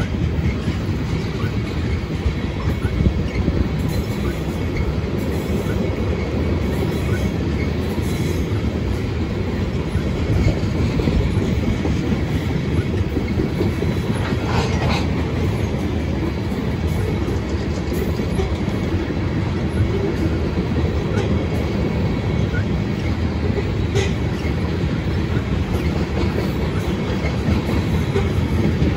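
Freight train tank cars rolling past on steel wheels: a steady low rumble of wheels on rail.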